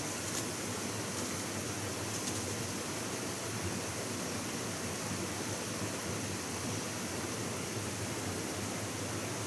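Steady rush of running water, with a few faint clicks in the first couple of seconds.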